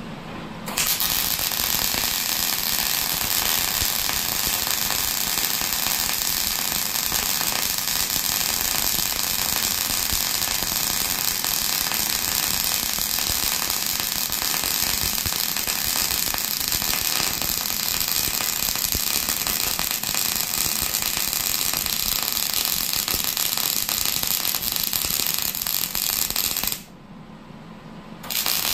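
MIG (wire-feed) welder arc crackling steadily through a long weld bead. It stops briefly near the end, then the arc strikes again.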